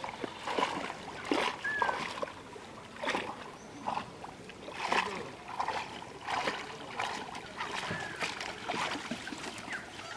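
Shallow muddy water splashing as a man wades through it and sweeps his hands and a bamboo-framed mesh net through the water. There are irregular splashes about once a second.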